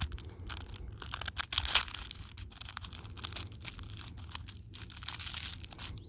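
Red paper wrapping of a firecracker pack crinkling and tearing as it is opened by hand, with scattered crackles and a louder rip a little under two seconds in.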